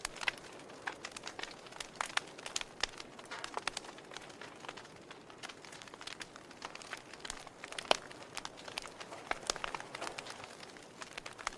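Wood fire crackling in a fireplace: irregular sharp pops and snaps over a soft hiss, with one louder pop about eight seconds in.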